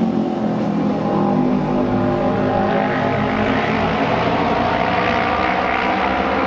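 Two Japanese auto race motorcycles, with 600 cc parallel-twin four-stroke engines, running at racing speed together around the oval. The engine note is loud and steady throughout, climbing higher and brighter midway as they come onto the straight.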